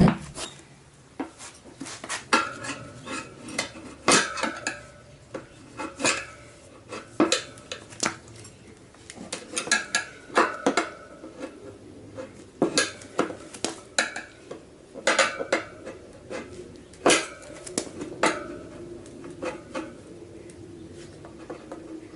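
Steel tyre levers clinking and scraping against a motorcycle's chrome wheel rim as a new front tyre is levered onto it by hand: an irregular string of sharp metallic clinks, each with a short ring.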